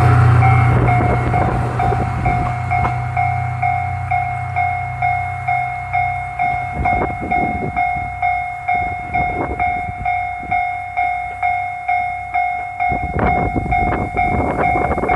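Railway level-crossing warning bell ringing, a steady electronic tone pulsing about twice a second, while a diesel railcar's engine rumble fades away in the first half.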